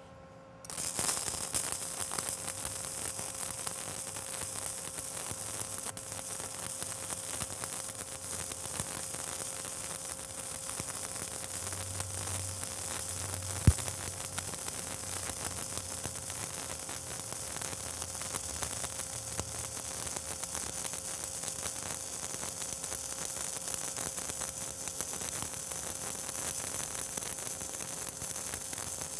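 Stick-welding arc of a 3/32 in. 7018 electrode at about 85 amps running the cap pass on a vertical 3/8 in. plate joint. The arc strikes about a second in and then crackles steadily, with one sharp crack about halfway through.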